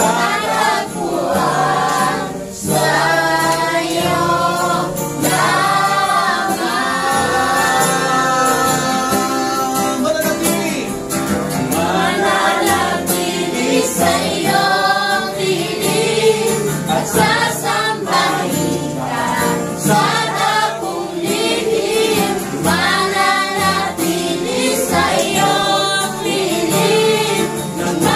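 A small congregation singing a Tagalog praise song together, phrase by phrase, a mix of voices in a steady, continuous chorus.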